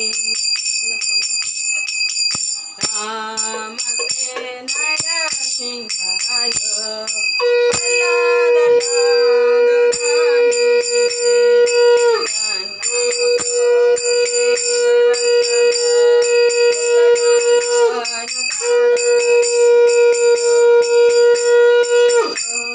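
A conch shell (shankha) is blown for aarti. After a few wavering notes, it sounds three long, steady blasts, each cut off sharply, the first starting about a third of the way in. A hand bell rings continuously underneath.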